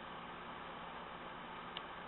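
Steady low hiss of room tone and recording noise, with one faint short tick near the end.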